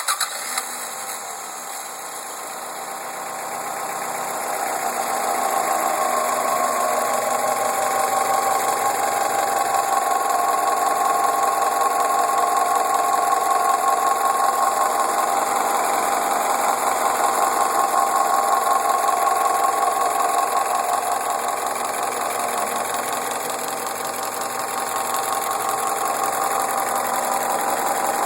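Toyota 4S-FE 1.8-litre inline-four engine running with a rapid knock from inside the engine. The level climbs over the first few seconds, then holds steady.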